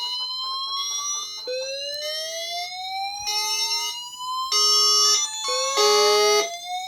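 Fire alarm sounders going off together. One gives a rising sweep tone that repeats every two seconds or so, another pulses rapidly on and off, and from about halfway a louder steady tone starts switching on and off.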